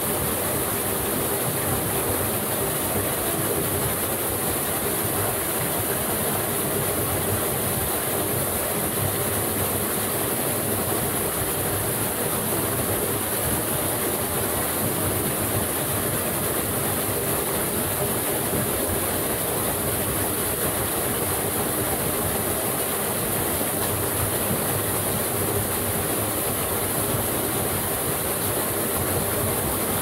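Waterfall spilling into a shallow creek pool: a steady, even rush of water.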